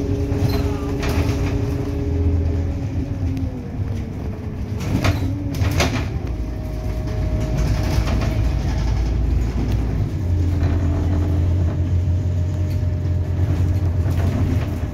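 Inside a 2008 Scania Lahti Scala K280UB city bus on the move: a steady low engine drone under the whine of its ZF automatic gearbox. The whine falls in pitch about three seconds in, and a new steady whine sets in about ten seconds in. A couple of brief clatters come around five to six seconds in.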